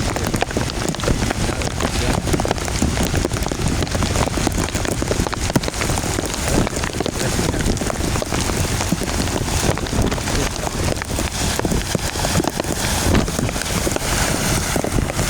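Rain falling steadily in a storm, with many drops striking close to the microphone as sharp ticks.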